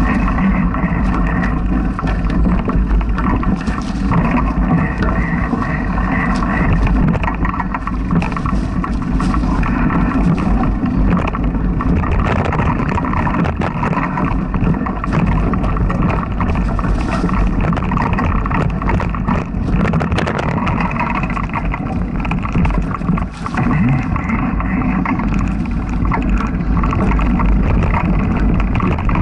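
Mountain bike ridden over a rough dirt forest trail, picked up by a camera mounted on the bike: a steady low rumble from the tyres and frame, with many small rattles and clicks.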